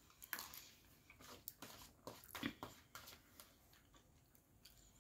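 Faint close-up eating sounds of a mouthful of spaghetti bolognese being chewed: soft irregular smacks and clicks from the mouth and fork.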